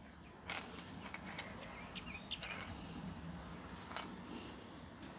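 Aerosol spray-paint can being shaken, its mixing ball rattling inside in a few sharp, irregular clacks.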